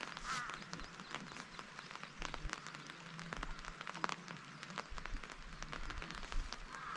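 Rain falling, with many separate drops ticking close by.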